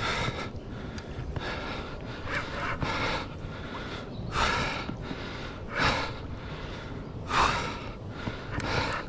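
An angler breathing hard in a run of heavy, gasping breaths, louder from about four seconds in, straining while fighting a hooked catfish on a bent rod.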